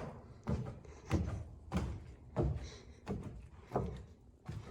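Footsteps climbing the stairs of an unfinished house: about seven footfalls at an even walking pace.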